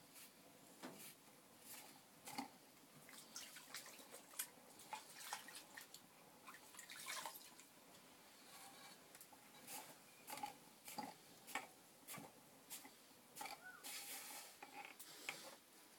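Faint, irregular wet clicks and drips of soft clay and a wet sponge being worked by hand on a potter's wheel, several a second, busier in the second half.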